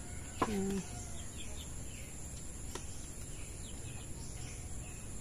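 Faint bird chirps scattered over a steady high insect drone, with one short voice-like call about half a second in and a single light tick near the middle.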